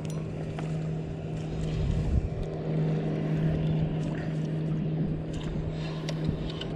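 A boat's motor runs with a steady hum, while a spinning reel is cranked in with a few faint clicks as a hooked bass is brought to the boat.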